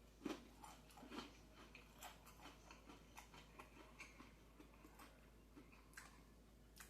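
Near silence with faint, irregular mouth clicks and chewing of a man eating fried chicken.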